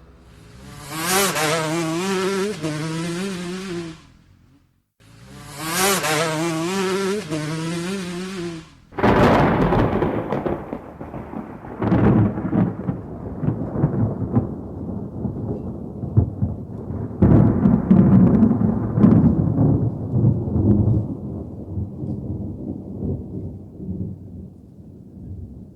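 Thunder rumbling in long rolling peals with several loud cracks, fading away toward the end. It is preceded by a pitched, wavering sound played twice, each time for about three and a half seconds.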